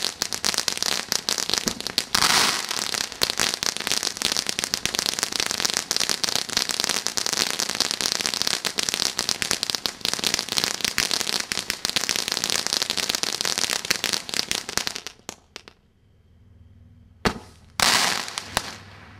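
Brothers Fireworks 'Pure Fantasy' ground fountain crackling densely and rapidly, then dying away after about fifteen seconds. Near the end comes a sharp crack and a short, loud gush as a tall spray of sparks shoots up.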